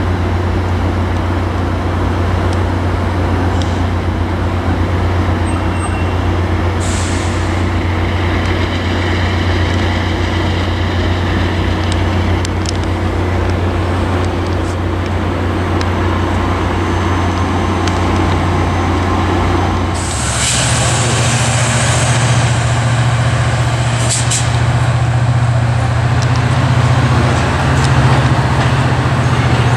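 Diesel passenger locomotives running at a station platform: a steady low engine drone that changes to a higher, louder drone about two-thirds of the way through, with a few short hisses of air.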